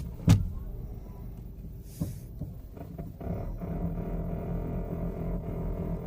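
Hyundai Elite i20's steering making its noise as the wheel is worked, with a sharp knock about a third of a second in, a smaller one about two seconds in, and a steady low hum from about three seconds on. The owner says the noise has grown louder than before and comes with vibration in the steering wheel.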